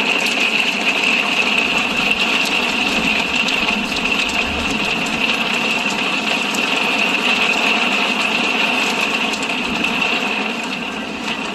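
Hailstones pelting hard surfaces in a dense, steady clatter of rapid ticks.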